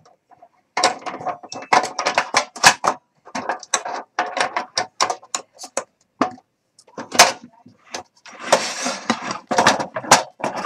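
Clicking and clattering from a portable cassette gas stove as an Iwatani butane canister is handled, seated in its compartment and the black compartment cover is fitted. The sound is a busy run of sharp knocks and clicks, with a longer scraping rattle near the end.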